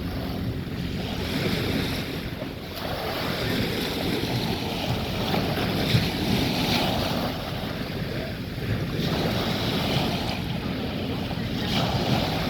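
Waves washing onto a sandy beach, swelling and easing in surges every few seconds, with wind rumbling on the microphone.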